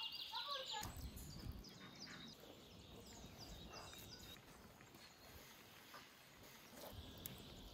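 Faint outdoor ambience with small birds chirping: a quick trill at the start, then a string of short, high, falling chirps.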